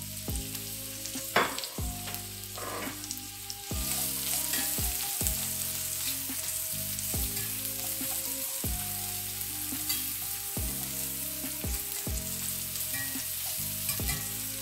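Diced onion sizzling in hot leftover grease from seared short ribs in a cast-iron skillet, stirred with a wire whisk. The sizzle grows louder about four seconds in, and there is one sharp knock about a second and a half in.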